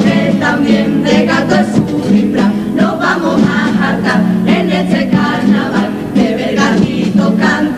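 Female comparsa choir singing a Cádiz carnival song in harmony, accompanied by a bass drum and cymbal.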